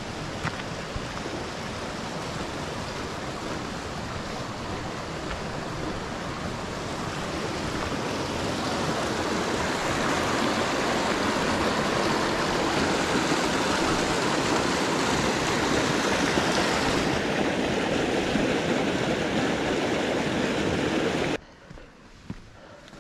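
Rushing water of a cascading mountain stream. It is a steady, dense rush that grows louder over the first half and then cuts off suddenly a couple of seconds before the end.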